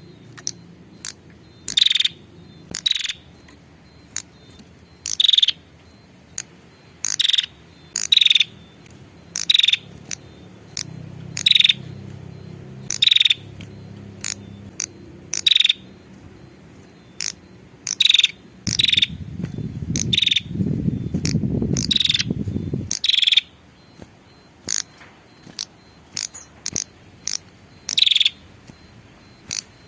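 Female prenjak giving short, sharp, high calls over and over, roughly one a second at uneven spacing. This is the call used as a lure to draw in males. A low rumble rises under the calls about two-thirds of the way through and stops after a few seconds.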